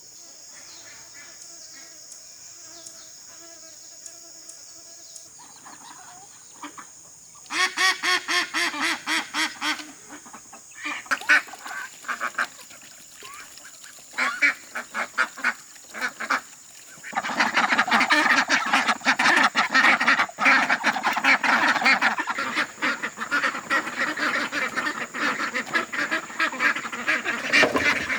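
A flock of ducks quacking in rapid runs that starts about seven seconds in and swells into a dense, continuous chorus of many ducks from about seventeen seconds on. Insects shrill steadily in the background throughout.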